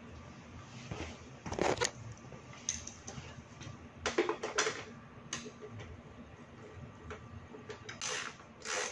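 Plastic motorcycle side cover panel being handled and pressed into its clips by hand: irregular sharp clicks and knocks of plastic, some in quick clusters, with gaps between.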